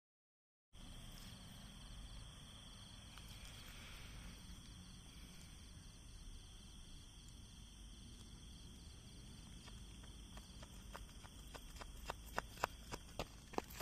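Faint night-time outdoor ambience with insects chirping steadily. From about ten seconds in, a series of sharp crackling pops grows denser and louder: the lit fuse of a display shell spitting as it burns down toward the lift charge.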